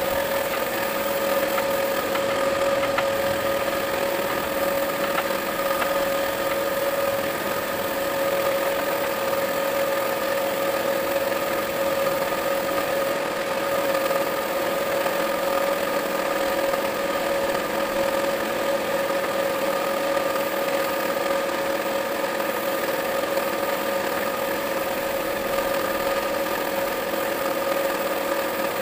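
Air compressor running steadily with a constant hum, alongside the hiss of an air spray gun spraying wood finish onto bare timber.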